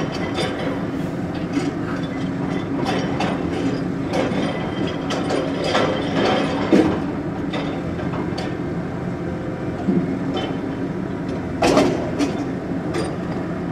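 Scrap-yard machinery running with a steady low hum and irregular metallic clanks and knocks, a sound taken on the spot for an air compressor or something like it.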